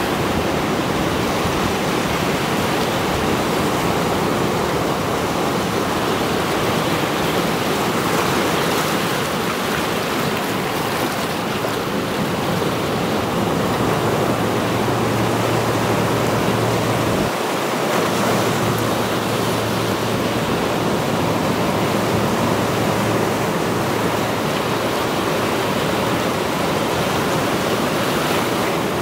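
Sea surf breaking and washing over a rocky shore: a steady, continuous rush of waves.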